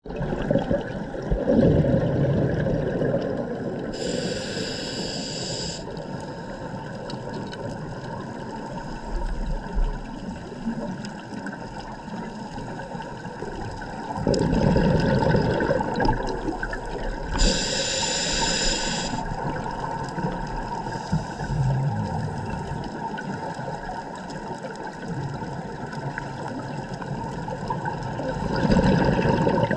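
Scuba diver breathing through a regulator underwater: three rumbling bursts of exhaled bubbles, about thirteen seconds apart, each followed a few seconds later by a hissing inhalation lasting under two seconds.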